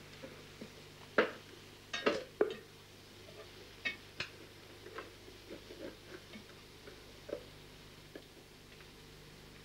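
Irregular light clinks and knocks of an aluminium teapot and other kitchenware being handled while tea is made, with the loudest clatters in the first few seconds, over a faint steady low hum.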